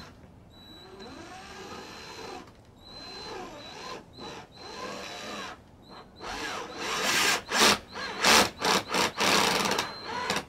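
Power drill driving self-tapping screws up through a plastic rear diffuser into the bumper. The trigger is pulled in several runs, with the motor's pitch rising and falling. In the last few seconds it comes in louder, quick bursts as the screw goes home.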